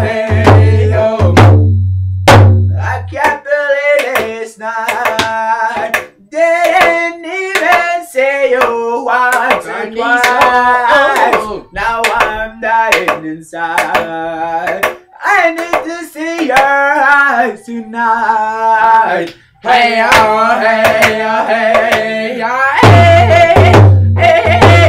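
Two men singing a Cree hand-drum song, with a hand drum and a shaken rattle. The drum beats steadily at first and drops out after about two seconds, leaving the voices and the rattle's clicks. The drumming comes back near the end.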